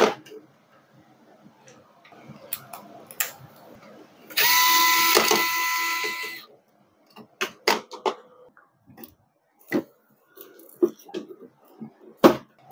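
Cordless electric screwdriver running for about two seconds as a steady whine, turning a screw in the printer's frame. Around it come scattered clicks and knocks of plastic printer parts being handled, with a sharper knock at the start and one near the end.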